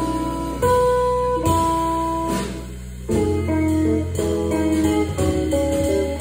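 Live jazz trio playing: electric guitar, organ and drum kit, with held single-note melody lines over a steady low bass. The playing drops back briefly just before the middle, then picks up again.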